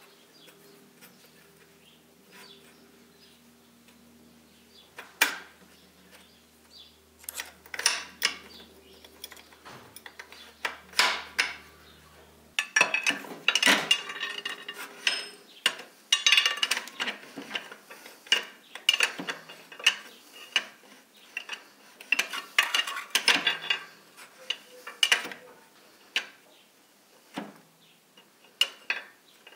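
Steel tools and gearbox parts clinking and scraping together inside the open cast-iron gearbox case of a U-445 tractor. At first there are a few separate knocks, and from about halfway a busy run of metallic clatter and rattling as the shift forks and gears are worked.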